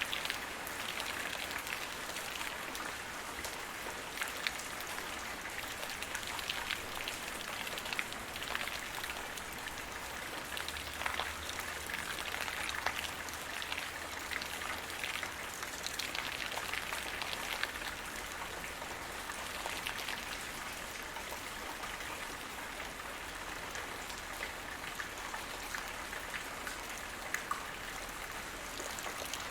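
Light rain falling steadily, with individual raindrops pattering on the ground.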